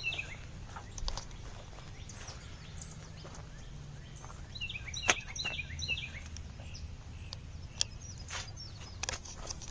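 A small bird chirping in two quick runs of short notes, one at the start and one about five seconds in, over a steady low outdoor rumble with scattered clicks.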